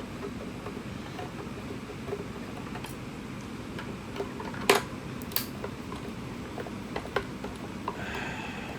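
Scattered sharp clicks and light knocks of a plastic portable speaker being handled and taken apart. The two loudest clicks come a little under five and about five and a half seconds in, with a brief rustle near the end, over a steady low hiss.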